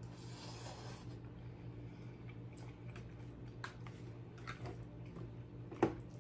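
Chewing a mouthful of pasta, with a plastic fork clicking and scraping against a plastic clamshell container a few times; the loudest click comes near the end. A low steady hum runs underneath.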